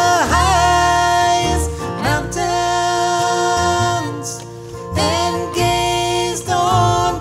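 Live bluegrass gospel music: acoustic guitar, fiddle and upright bass, with a man singing long held notes without clear words.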